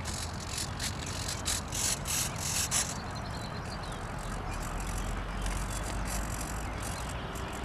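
Outdoor noise on a hand-held camera microphone: a steady hiss and low rumble typical of wind, with crackling handling or rustling noise during the first three seconds.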